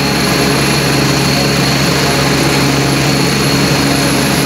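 Helicopter running close by: a loud, steady rotor sound with a thin high whine held over it.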